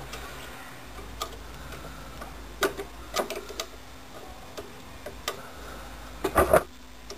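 Scattered sharp clicks and light knocks of a screwdriver working the Phillips screws of a stock fuel pressure regulator on the back of a fuel rail, with a louder cluster of clicks near the end. A faint steady hum runs underneath.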